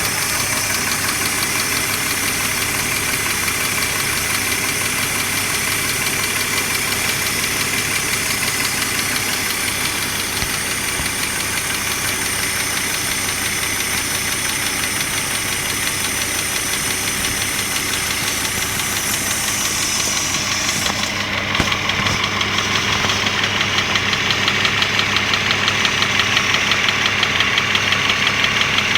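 An engine running steadily; about two-thirds of the way in its sound changes, turning less hissy and harsher in the middle range.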